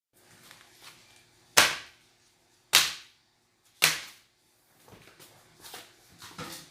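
Three sharp, loud cracks about a second apart, each dying away quickly, with faint rustling and small knocks between them.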